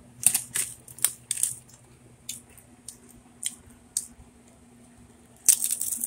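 Doritos chip bag crinkling loudly as a hand rummages in it, then the crisp crunches of a tortilla chip being bitten and chewed, spaced out, with another loud burst near the end.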